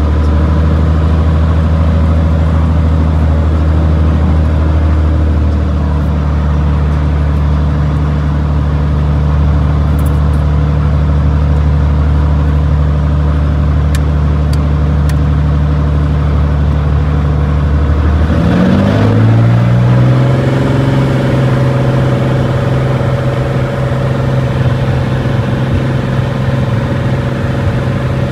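An engine running steadily at low speed, then speeding up over about two seconds, a little past the middle, and holding the higher speed.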